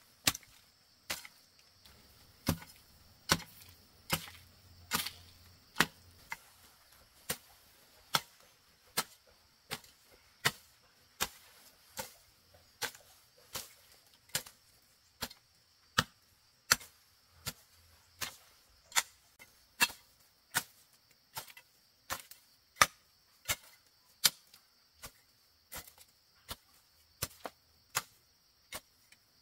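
Steady chopping with a blade, one sharp stroke about every three-quarters of a second, most likely cutting bamboo. A steady high-pitched drone runs behind the strokes.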